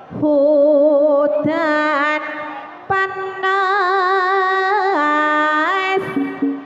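A female gamelan singer (sinden) singing long held notes with heavy vibrato in two unbroken phrases, with a short break about three seconds in.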